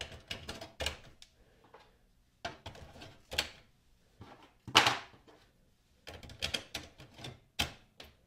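Plastic clicks and knocks of Epson 222 ink cartridges being pushed into the print head carriage and snapping into place, in several short clusters, the loudest about five seconds in.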